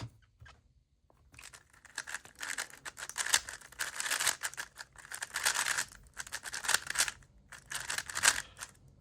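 A new GAN speedcube turned at full speed in a solve, a dense run of fast plastic clicking and clacking that starts about a second in and pauses briefly twice.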